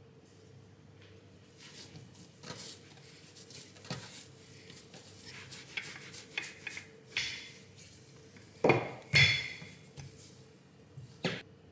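Kitchenware being handled: dishes and cutlery clinking and knocking in a series of light taps, with two louder knocks close together about nine seconds in and one more near the end.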